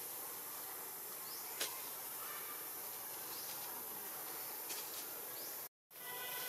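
Outdoor ambience with a steady high-pitched insect buzz, a single sharp click about one and a half seconds in, and a moment where the sound cuts out completely near the end.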